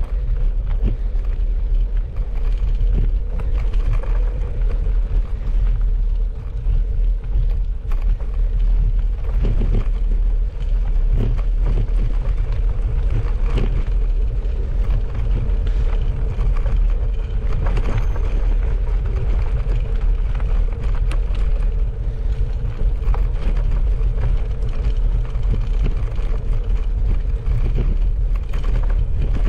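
Bicycle ridden along a rough gravel track: a steady, loud low rumble with many small clicks and rattles throughout.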